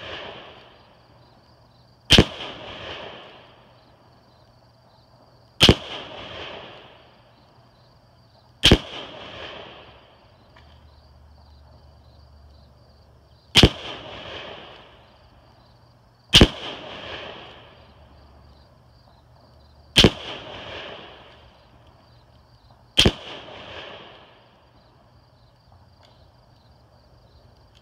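Seven shots from a Ruger Gunsite Scout bolt-action rifle in .308, fired one at a time a few seconds apart as the bolt is worked between shots. Each sharp crack is heard from downrange, near the target, and trails off in a rolling echo of about a second and a half.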